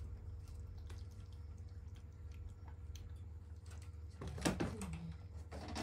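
Water being sprinkled onto the ground outdoors to cool it. Faint drips come first, then two louder splashes in the last couple of seconds.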